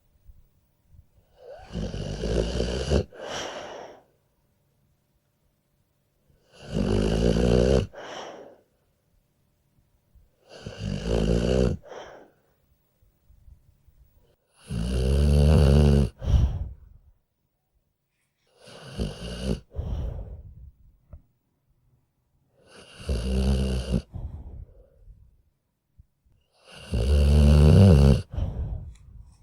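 A sleeping dog snoring evenly: seven snores, about one every four seconds, each lasting about two seconds, with silence between them.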